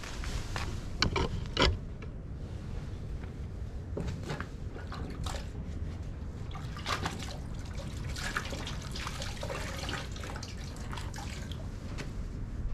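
Water splashing, trickling and dripping in a metal bucket as gloved hands work a wash cloth in it. The small splashes and knocks come irregularly, a few sharper ones about a second in, over a low steady rumble.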